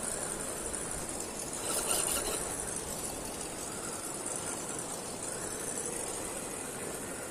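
1:10 RGT EX86010-CJ RC crawler's electric motor and gears whining as it crawls off-road, the pitch rising and falling with the throttle. About two seconds in there is a brief louder scrape or crunch.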